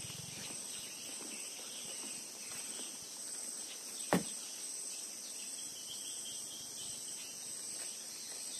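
Steady, high-pitched chorus of insects droning. A single sharp click is heard about four seconds in.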